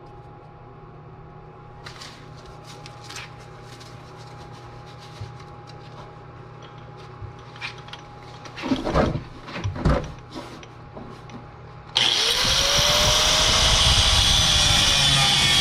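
Tools clinking and knocking on metal, a few louder knocks near the middle, then about twelve seconds in a power cutting tool starts abruptly and runs loudly and steadily, cutting through a seized, rusted sway bar link that won't unbolt.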